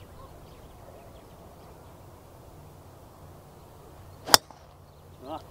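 A golf club strikes a ball once, a single sharp crack about four seconds in.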